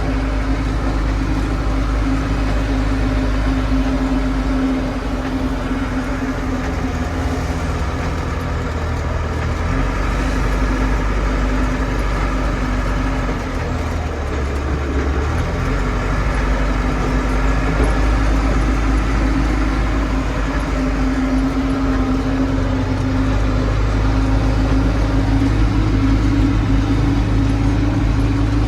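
Heavy diesel engine of a JCB backhoe loader running steadily with a constant hum, its low rumble changing level a few times as it works.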